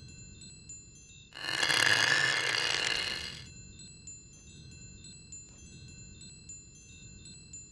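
Eerie horror sound design: faint, scattered high tinkling throughout, with a loud airy whoosh that swells about a second in and dies away around three and a half seconds.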